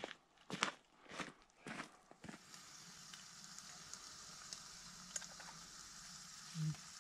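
Footsteps crunching on a gravel track, about two steps a second. About two seconds in they give way to the steady hiss of a lit backpacking gas canister stove burner, with a few faint clicks of a utensil against the pot.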